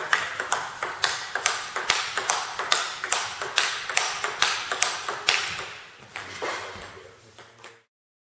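Table tennis rally: the ball clicks sharply off the bats and the table in quick alternation, several hits a second, with one bat faced in Nittaku Monophonic inverted rubber. The hits die away about seven seconds in.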